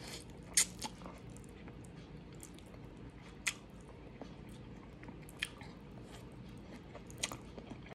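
A person eating noodles with chopsticks: chewing, with four short sharp mouth sounds, the loudest about half a second in.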